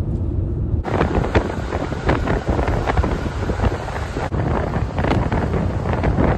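Wind buffeting the microphone, cutting in sharply about a second in as a loud rushing hiss with crackles, over a steady low rumble.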